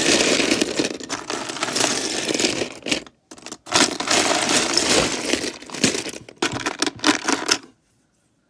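Loose plastic Lego bricks and minifigures clattering and rattling as a hand digs through a box full of them, in two long stretches with a short break about three seconds in. It stops shortly before the end.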